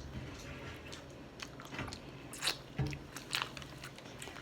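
A person chewing and biting food, with a few short, sharp crunchy clicks and mouth sounds.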